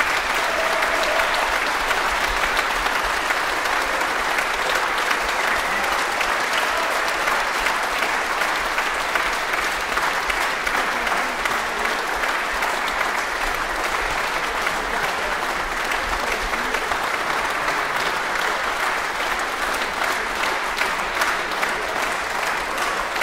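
Concert audience applauding steadily, a dense sustained clapping.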